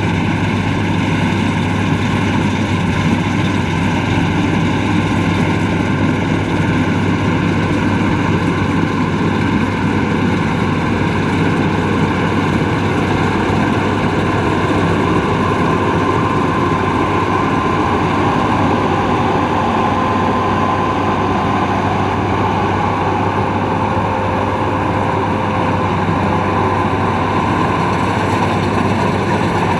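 Rice combine harvester running steadily, a low engine hum with machinery noise over it; a faint higher whine comes in about halfway through.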